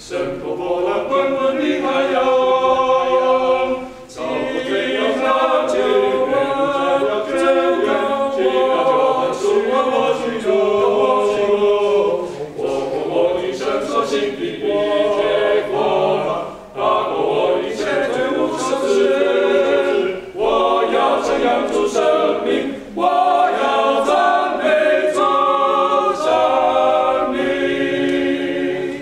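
Five men singing a cappella in parts as a male vocal quartet, in phrases separated by short breath pauses. The song stops right at the end.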